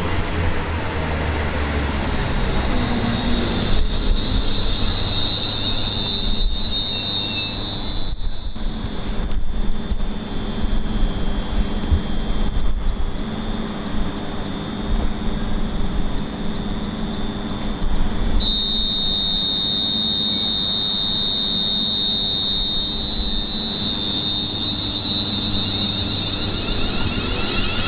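A train running past, with a steady high-pitched whine that grows stronger suddenly about two-thirds of the way through.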